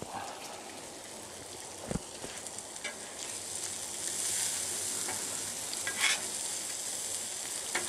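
Bacon, pancakes and vegetable hash sizzling on a steel flat-top gas griddle, while a metal spatula scrapes and turns the hash across the cooking surface. The sizzle swells about halfway through, and a few short spatula scrapes stand out.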